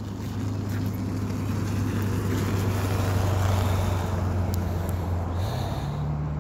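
A motor's steady low hum that swells toward the middle and changes pitch about five and a half seconds in.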